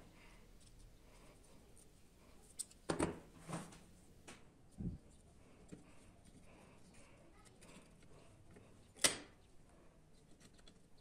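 Small wooden parts of a handmade miniature guillotine clicking and knocking as its blade block is handled and fitted between the uprights. The knocks are faint and scattered, with a few close together early on and the sharpest click near the end.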